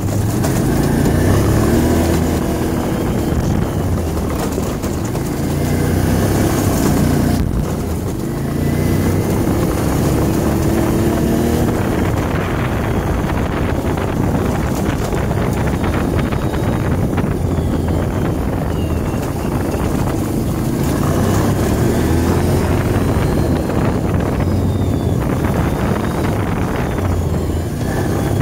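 Can-Am ATV engine running under way, its pitch rising and falling again and again as the throttle is opened and eased off. Wind rumbles on the microphone throughout.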